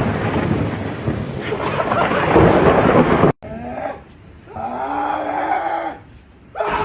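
Thunder rumbling after a lightning strike, with rain hissing. About three seconds in it cuts off abruptly, and two short calls with a clear pitch follow.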